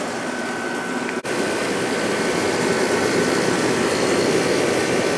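1997 Sharp 8500 BTU window air conditioner running on low fan speed with the compressor on: a steady rush of fan air and compressor hum with a faint, steady high tone. The sound drops out briefly about a second in.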